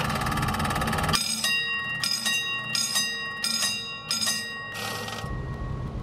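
A bell struck over and over, roughly two strikes a second, each strike ringing on with several clear tones. The low rumble of a passing electric train comes before the strikes and returns near the end.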